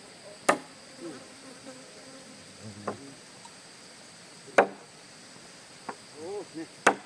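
Steady high insect drone, with five sharp knocks at uneven intervals, the loudest about half a second, four and a half seconds and seven seconds in.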